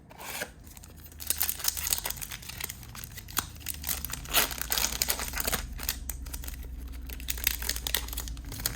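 A Panini Prizm trading-card pack's wrapper crinkling and tearing as it is ripped open and pulled off the cards, a dense run of crackles starting about a second in.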